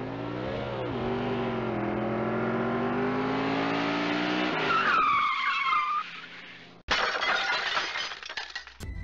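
Staged car-crash sound effect. A car engine accelerates with slowly rising pitch, then tyres squeal for about a second and a half. About seven seconds in comes a sudden crash of metal that clatters on for nearly two seconds.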